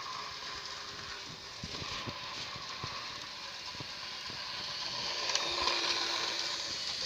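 Model train with a DB class 139 electric locomotive running on its track: a steady whir from the motor and wheels, with irregular clicks over the rail joints, growing louder about five seconds in as the train comes close past.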